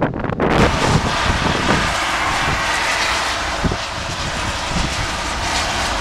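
Strong windstorm wind blowing steadily: a broad rushing sound with irregular low rumbles of gusts buffeting the microphone.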